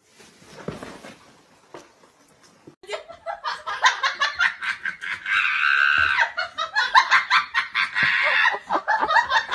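Quiet at first, then a person laughing hard from about three seconds in, a quick unbroken run of laughs to the end.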